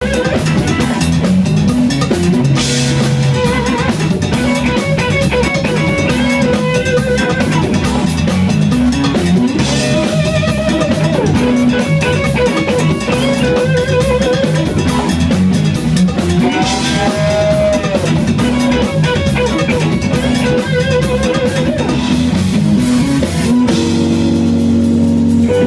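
Live funk-rock band playing: electric guitar lead lines with bent, wavering notes over a drum kit and bass groove. Near the end the band moves onto held chords.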